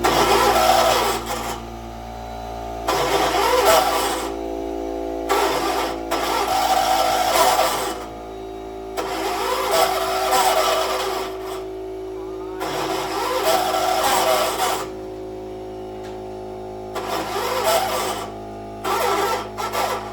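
A 1976 John Deere 300 lawn tractor's engine running steadily, having just caught after a hard start. Seven louder bursts of noise lasting one to three seconds come and go over it.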